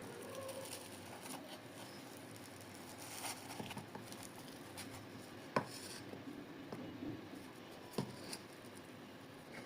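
Faint kitchen handling noises: light tapping and rubbing, with two sharp clicks, one just past halfway and one near the end.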